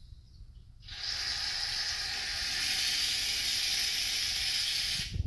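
Aerosol shaving cream can spraying foam: one long steady hiss that starts about a second in and cuts off just before the end.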